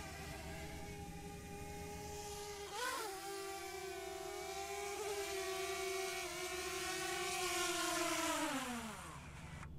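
An engine running steadily at high revs, with a brief rev about three seconds in; near the end its pitch drops and it fades out.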